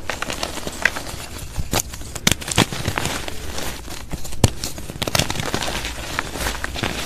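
Hands crushing and crumbling lumps of dried gym chalk paste: irregular crunching and crackling, with a few sharper cracks as firmer chunks break apart.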